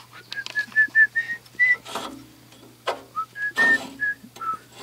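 A person whistling a short tune: a string of short, clear notes that climb step by step and later fall back, with a couple of brief rustling noises in between.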